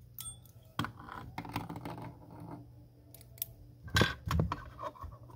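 Small clicks, taps and rustles of hand work at a fly-tying vise: thread being wrapped and locked in and small metal tools handled. There is a louder knock about four seconds in.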